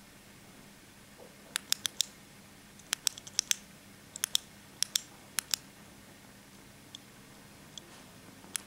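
Jetbeam PC20 flashlight's tailcap switch clicked over and over in quick pairs and short runs, cycling through its modes to reach strobe.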